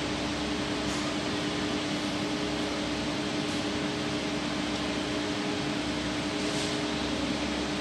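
A steady machine hum with one constant tone over a even hiss, unchanging throughout.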